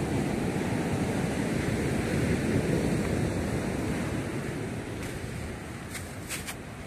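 Ocean surf breaking and washing up over a rocky beach, a steady rush that grows quieter in the second half. A few faint clicks come near the end.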